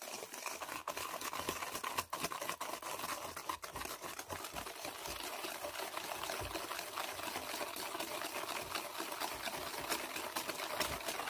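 Wire whisk beating a liquid egg, yogurt and oil mixture by hand in a stainless steel bowl: a rapid, steady clatter of the wires against the metal with wet sloshing. The wet ingredients are being beaten until the sweetener granules dissolve.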